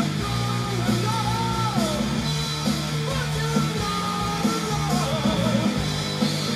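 Rock music: a sung vocal line over electric guitar, bass and drums, in a steady, even-tempo krautrock-style groove.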